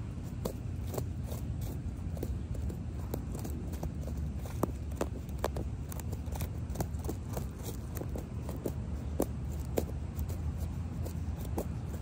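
A fingernail poking and scratching through dry bark mulch and pine needles, making irregular crackles and clicks a few times a second over a low steady rumble.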